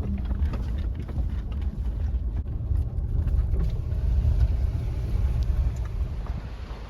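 Car driving over a rough, bumpy road, heard from inside the cabin: a steady low rumble with scattered knocks and rattles as it jolts.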